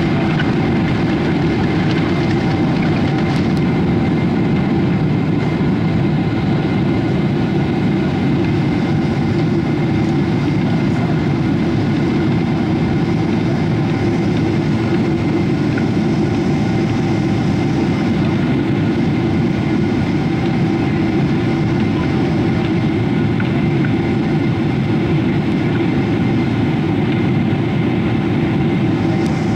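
Boeing 777-300 jet engines at takeoff power, heard inside the cabin: a steady, loud deep rumble with a few faint steady whining tones above it, carrying unchanged through the end of the takeoff roll and the first part of the climb.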